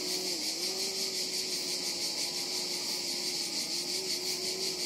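DJI Mavic Pro quadcopter in flight, its propellers giving a steady hum that wavers slightly in pitch. Insects buzz high and fast beneath it.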